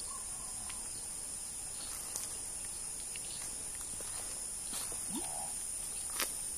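Steady high-pitched drone of insects calling, with a few faint clicks, the clearest about six seconds in.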